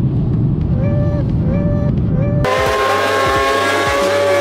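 A low, steady airliner cabin rumble, cut off abruptly about halfway through by a sportbike engine held at high revs during a burnout, with the rear tyre squealing and smoking.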